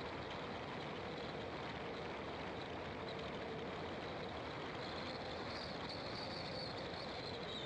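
Car driving along a road: steady engine and tyre noise, with a faint high-pitched tone that grows stronger about five seconds in.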